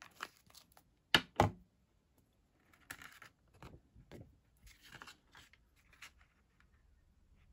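Card stock being handled and set down on a craft table: two sharp knocks about a second in, then soft paper rustling and scraping.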